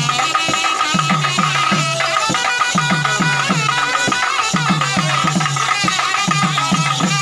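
Traditional South Indian folk drum music accompanying a ritual dance: low drum strokes that drop in pitch, two to three a second, under a higher melody line.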